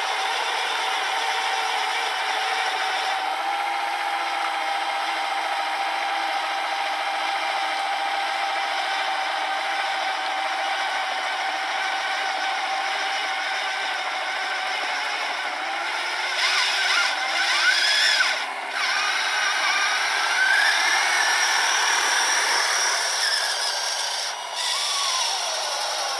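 Electric motors of a 3D-printed RC snowblower and its RC trail truck, whining with a steady, even pitch for about fifteen seconds. From about sixteen seconds in, the whine rises and falls in pitch and grows louder at times, as the motors speed up and slow down.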